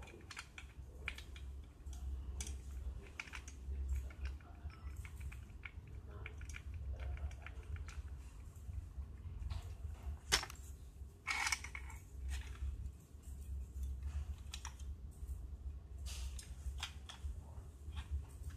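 Irregular light metallic clicks and knocks from a Bervin BMB-A1932 TV wall bracket's metal parts and a screwdriver as they are handled, with a denser rattle about 11 seconds in, over a low steady hum.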